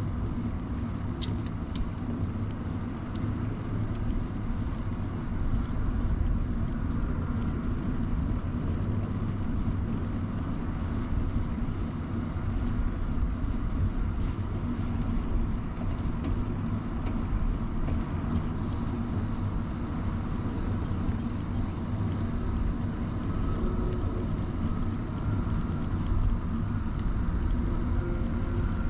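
Steady low rumble of wind and tyre noise from an early-1970s Peugeot UJ-10 ten-speed bicycle rolling along, picked up by a camera mounted on the bike. A few sharp clicks come about a second in.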